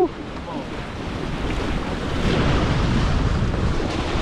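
Wind buffeting the microphone over the steady rush of water along the hulls of a Hobie Getaway catamaran sailing fast.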